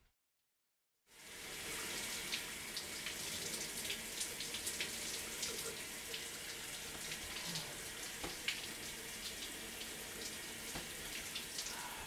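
A shower running: a steady spray of water hissing and splashing, with scattered small splash ticks, starting suddenly about a second in after a moment of silence.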